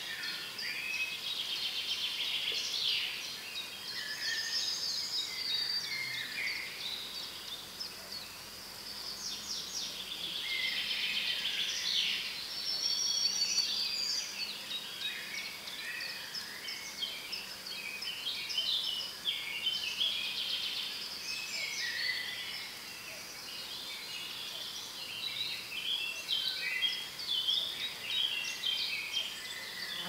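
Several songbirds singing over one another in a busy chorus of overlapping phrases and fast trills.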